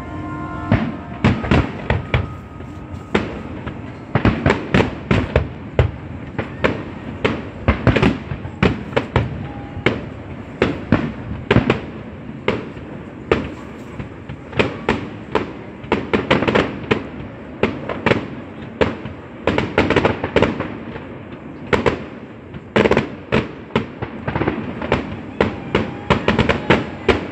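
Aerial fireworks display: shells bursting in a dense, irregular run of sharp bangs and crackles, at times several a second.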